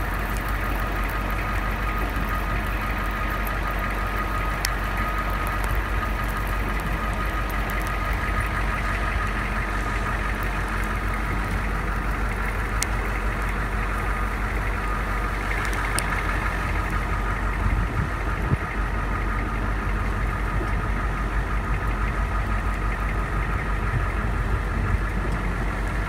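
Work truck's engine idling steadily, heard from inside the cab: an even low drone with a thin steady whine above it.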